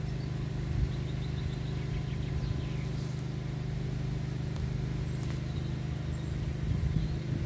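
A steady low mechanical hum, with a few faint bird chirps.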